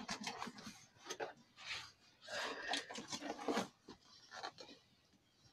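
Cardboard box flaps being pulled open, rubbing and scraping in a string of short bursts, dying away after about four seconds.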